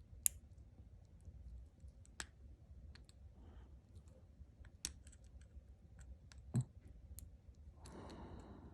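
Faint, irregular clicks of a hook pick and tension bar working the pin stacks inside a Master Lock 410 padlock during single-pin picking, with the lock held in a false set.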